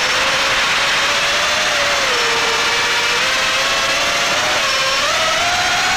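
Small toothpick-class FPV quadcopter's brushless motors whining in flight, heard from the drone's own camera, over a steady rush of propeller and wind hiss. The pitch sags a little about two seconds in and climbs again near the end as the throttle changes.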